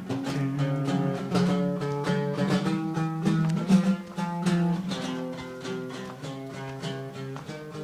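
Acoustic guitar playing a run of quick picked notes, a steady melodic line over lower bass notes.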